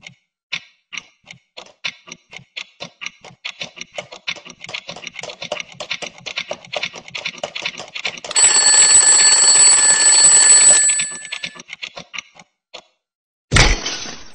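Wind-up twin-bell alarm clock ticking faster and faster, then its bell ringing loudly for about three seconds. A few last ticks follow, and near the end there is a sudden loud crash as the clock breaks apart.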